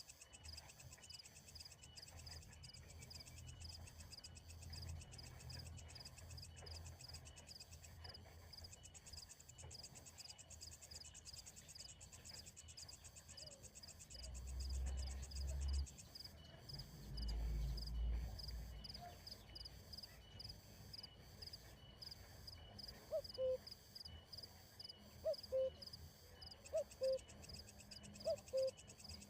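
Insects trilling steadily in a fast, even, high-pitched pulse. In the last several seconds short, low, pitched calls sound repeatedly, about one a second.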